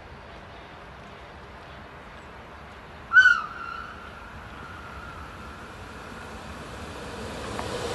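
A Rhaetian Railway electric train gives one short horn blast about three seconds in, a single tone that echoes on faintly for a couple of seconds. Near the end the train's rolling noise on the rails grows louder as it approaches.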